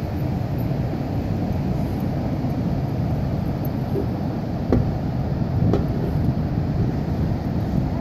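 Steady low rush of breaking ocean surf mixed with wind buffeting the microphone, with two brief knocks about halfway through.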